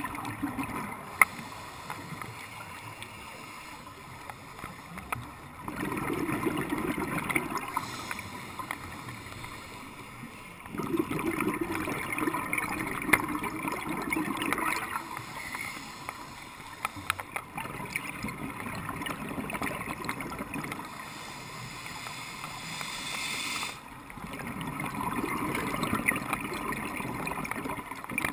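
Scuba regulator breathing heard underwater: bubbling exhalations that come in loud spells of a few seconds, about four of them, with quieter spells between breaths, and a sharp click about a second in.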